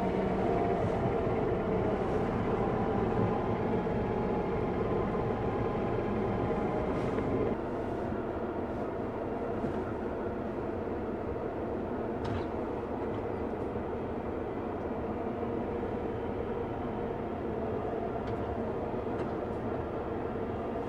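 Heavy farm vehicle running steadily on the move, a constant engine rumble with rattling; it drops a little in level about seven and a half seconds in.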